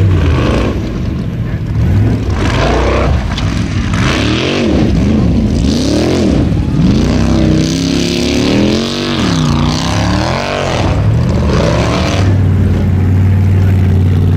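Formula offroad buggy's engine revving hard and unevenly as it claws up a steep dirt hill, the pitch swinging up and down again and again. Near the end it settles into a steady drone.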